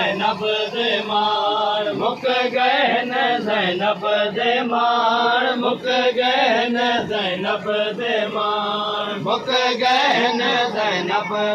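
Male voices chanting a noha, a Shia mourning lament, in a steady sung melody that runs on without a break.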